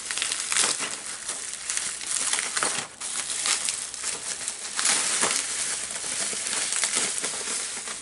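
White packing paper and a clear plastic bag crumpling and crinkling in the hands as a package is unwrapped. The crackle is irregular and continuous, with a brief lull about three seconds in.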